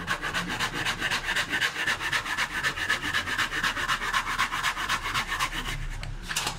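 Hand saw cutting across a wooden board in rapid, even back-and-forth strokes, each stroke a rasp. The sawing stops near the end, followed by a sharp knock.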